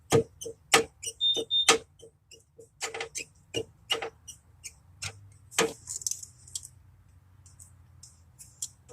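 Sharp clicks from hand tools being worked on the car, a few a second and uneven, thinning to faint scattered ticks for the last couple of seconds.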